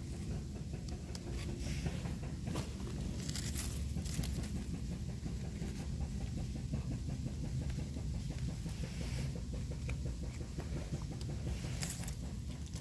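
Dry leaf litter and undergrowth rustling and crackling now and then as mushrooms are picked by hand, over a steady low rumble.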